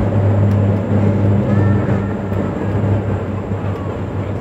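Cabin sound of a Dash 8-Q400 turboprop at takeoff power during the takeoff roll and lift-off: a loud, steady low drone from its six-bladed propellers over engine and airflow noise.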